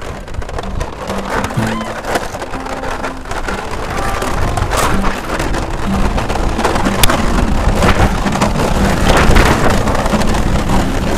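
A sled scraping and rumbling down an ice slide, with scattered knocks, the noise growing steadily louder as it gathers speed, and wind on the microphone. Soft instrumental music plays underneath.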